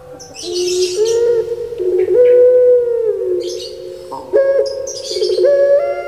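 Puter pelung dove (Streptopelia risoria) singing its long, drawn-out coo: held low notes that step up and down in pitch, with rolling, warbling stretches between them, in two long phrases, the second starting a little past the middle.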